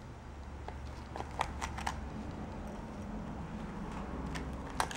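Scattered light metallic clicks as needle-nose pliers grip and pull staples out of a sisal-rope-wrapped scratching board.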